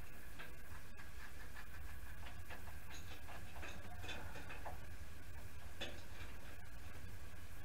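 Small irregular metal clicks and ticks from hands fitting a nut and parts onto a car's ignition switch, over a steady low hum.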